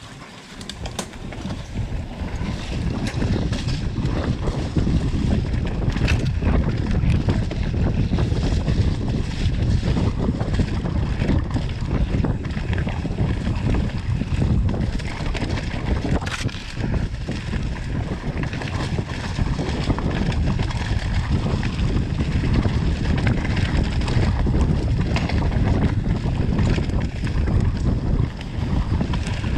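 Wind rushing over the camera microphone on a downhill mountain bike run, with the bike knocking and rattling over the trail's bumps. The noise builds over the first couple of seconds as the bike picks up speed, then stays loud.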